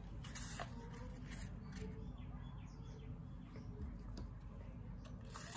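Scissors snipping through thick paper a few times, faint, with short high chirps in the background around the middle.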